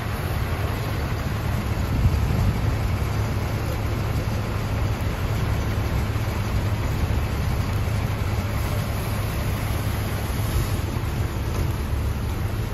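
City bus engine idling close by, a steady low rumble, over a constant hiss of water in the flooded street.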